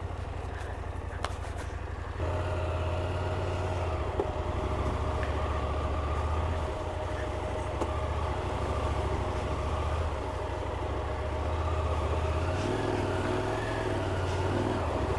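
KTM 890 Adventure R's parallel-twin engine running at low speed on a muddy dirt track. It picks up throttle about two seconds in, and a thin steady whine runs alongside the engine note from then on.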